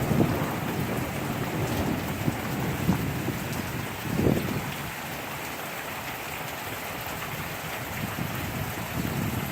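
Heavy rain downpour, with rainwater pouring and splashing from overflowing house gutters; a steady rush with a brief louder swell about four seconds in.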